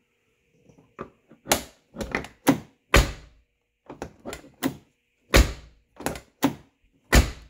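Lincoln Town Car door being opened and shut several times, its latch snapping over a new bushing on the door striker bolt: a run of sharp clicks with three heavier thunks of the door closing. The closing thunk is only a light thud, which the owner puts down to the striker sitting out a little too far.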